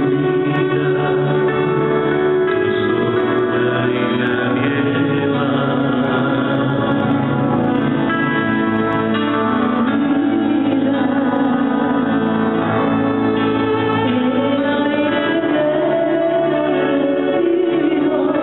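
Church hymn during Mass: singing with instrumental accompaniment, held notes going on without a break.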